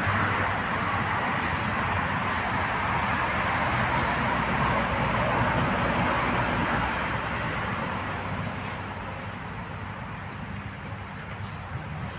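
Road traffic going by: a steady rushing noise of passing vehicles that gradually fades over the second half.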